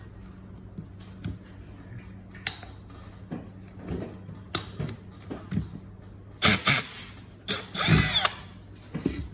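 Short loud bursts from an electric power tool, two about six and a half and eight seconds in and a shorter one near the end, the second with a pitch that bends. Scattered knocks and clicks of tools and metal parts come before them, over a steady low hum.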